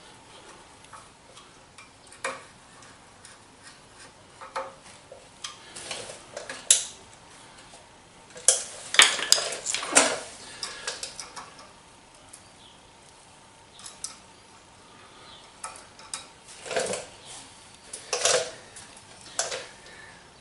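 Hand tools and small screws clinking and clicking against steel brackets and fittings in scattered, irregular knocks, busiest about halfway through and again near the end.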